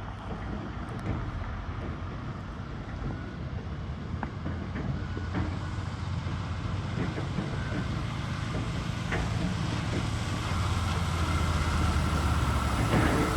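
Heavy truck engine running with a low rumble that grows steadily louder, joined by a steady whine about ten seconds in.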